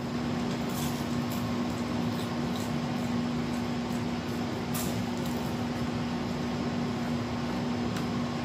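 Steady mechanical hum with a constant low tone, like an appliance or air conditioner running in a small room, with a few faint crunches of chewing a fried spring roll.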